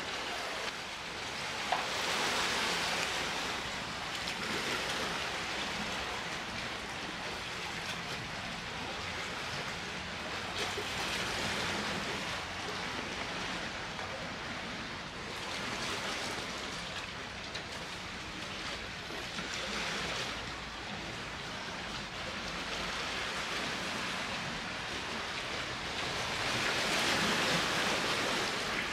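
Sea waves washing onto a beach, the rush of surf swelling and falling back every several seconds.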